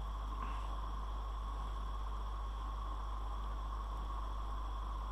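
Steady low electrical hum with hiss and a faint steady whine: the recording's background noise.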